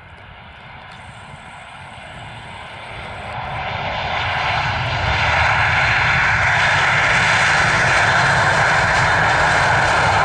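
Airbus A320 jet engines just after touchdown, swelling over a few seconds into a loud, steady roar as the airliner rolls out, typical of reverse thrust being applied.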